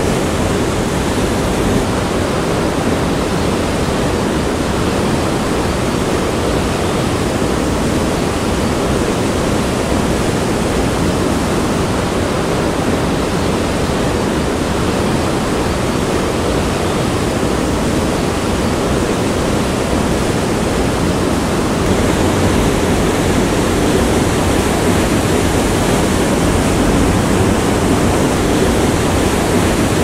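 Waterfall running with a decent flow, its water crashing steadily into a rock pool. The rush gets a little louder about two-thirds of the way through.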